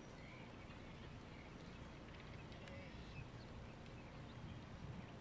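Faint outdoor background: a steady low rumble with a few faint, short high chirps.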